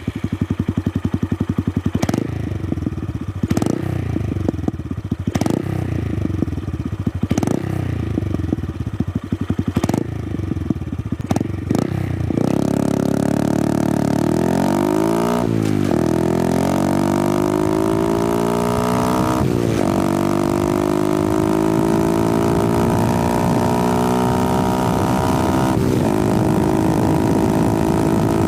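Honda Grom 125cc single-cylinder motorcycle engine recorded close to the exhaust. For the first dozen seconds it runs near idle with a sharp crack every couple of seconds. It then pulls away and accelerates, the note rising in each gear with a brief dip at each upshift, three times.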